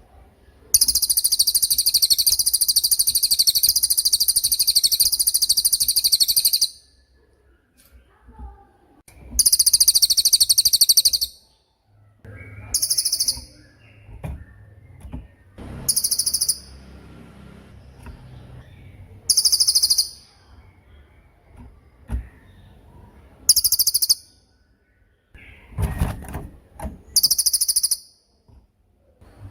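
Cililin songbird singing its rapid 'tembakan' song: very high-pitched, fast trilled bursts. The first runs about six seconds; six shorter bursts of a second or two follow every few seconds.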